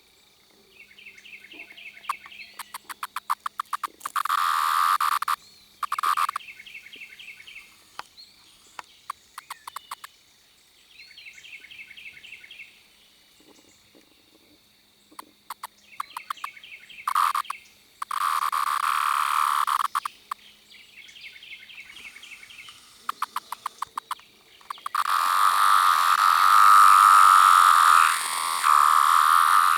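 A 17-year periodical cicada calling up close: several trains of rapid clicks and short buzzing bursts, then a long, loud, steady buzzing whine starting near the end.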